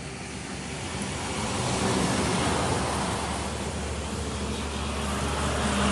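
A vehicle engine running steadily, growing louder about two seconds in.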